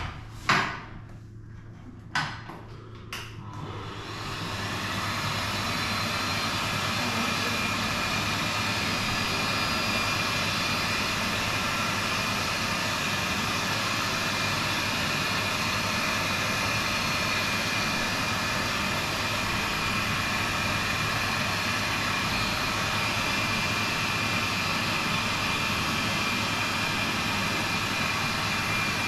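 A few sharp clicks, then a pet grooming blow dryer comes on about four seconds in and runs steadily: a loud rush of air with a faint steady whine.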